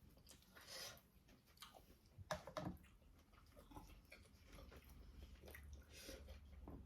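Faint chewing and mouth sounds of someone eating, with a few short wet smacks and clicks.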